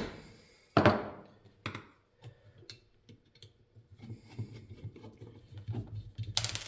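Parts of an antique cast-metal coffee grinder being handled while it is taken apart: a sharp clunk about a second in, a few light clicks, then rustling and scraping with small ticks.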